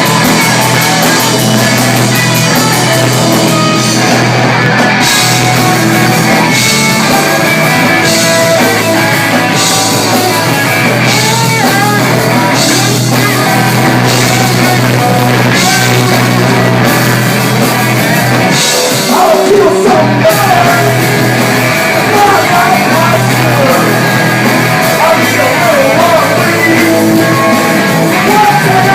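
Live garage punk rock band playing loud, with electric guitars, bass and drums and shouted vocals, steady and unbroken throughout.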